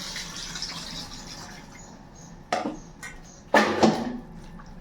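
Water splashing and sloshing as raw chicken pieces are washed by hand in a bowl, with louder splashes about two and a half and three and a half seconds in.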